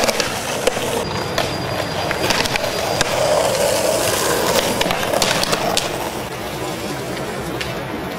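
Skateboard wheels rolling over stone paving slabs with a steady grinding rumble, broken by several sharp clacks of boards and trucks hitting the ground.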